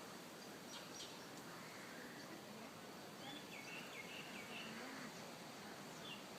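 Steady, faint outdoor background noise, with a short run of faint bird chirps about halfway through.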